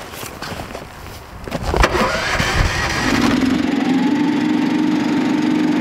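Snow Dog tracked power sled's small gas engine starting: it catches about three seconds in and settles into a steady idle.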